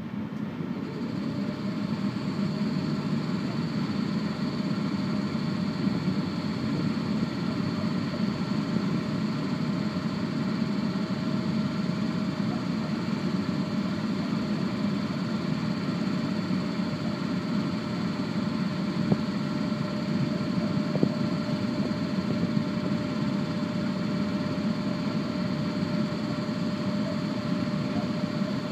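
ET41 electric locomotive's cooling blowers starting up and then running with a steady loud hum, with a faint high whine that comes in about a second in.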